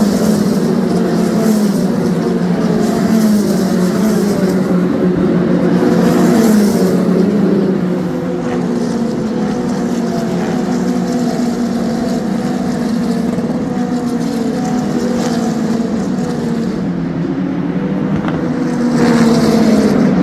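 Several single-seater race car engines running on track, their engine notes repeatedly sliding down in pitch as they pass or slow, overlapping without pause.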